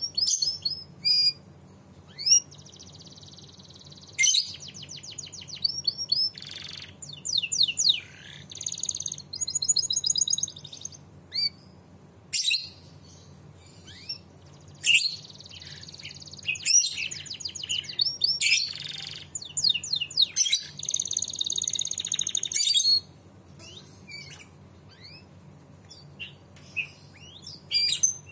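Domestic canary singing a long song of fast trills and rolls broken by sharp high notes, thinning to scattered short chirps for the last few seconds, over a faint steady low hum.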